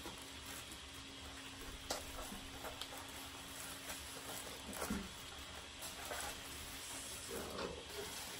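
Quiet handling of gingerbread house pieces and their plastic wrapping: soft crinkling and rustling with a few light taps and clicks on the table, the sharpest click about two seconds in.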